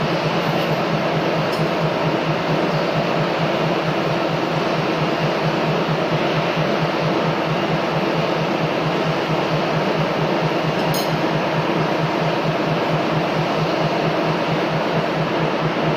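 Machinery running steadily: a loud, continuous mechanical noise with a low hum that pulses rapidly and evenly.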